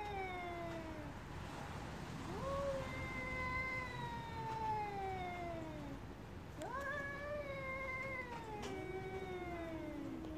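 Two cats caterwauling at each other in a face-off: a series of long, drawn-out yowls, each a few seconds, rising at the start and then sliding slowly down in pitch. The calls come one after another and briefly overlap near the end.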